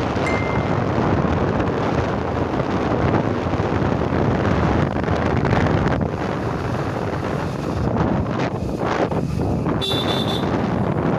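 Steady wind rush on the microphone of a phone riding on a moving open vehicle, with road noise underneath. A short high beep sounds about ten seconds in.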